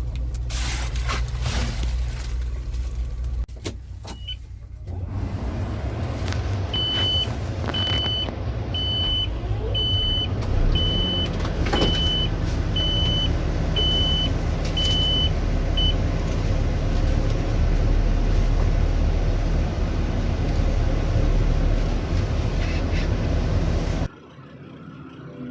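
Diesel engine of heavy equipment running steadily, with some knocks and clatter at first. For about nine seconds a reversing alarm beeps about once a second over the engine. Near the end the machine sound cuts off abruptly.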